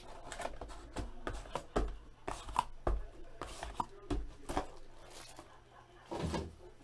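Cardboard trading-card mini-boxes being lifted out of a hobby box and stacked on a table: a scatter of light taps, knocks and scrapes of cardboard.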